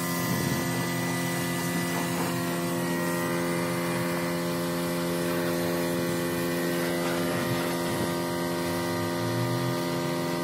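Gravity-feed paint spray gun hissing as it sprays paint onto a metal tractor part, over a steady, even machine hum with no change in pitch.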